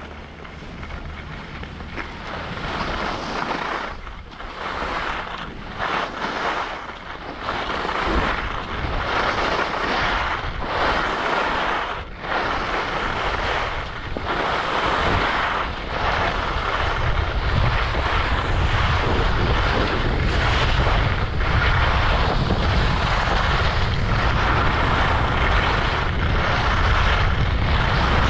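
Skis hissing and scraping over groomed, packed snow, rising and dipping about once a second with the turns, with wind buffeting the action camera's microphone. About halfway through, the wind rumble grows louder and steadier as speed builds to about 25 mph.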